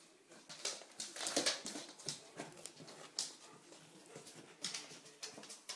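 Dogs moving about on a hardwood floor: irregular clicks and scuffles, thickest about a second in.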